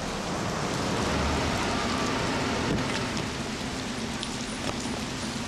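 Heavy rain falling steadily on a city street and pavement, an even hiss.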